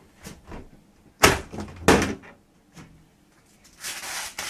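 A PC case's side panel being taken off: two sharp knocks about a second apart, then a scraping, sliding noise near the end as the panel comes away.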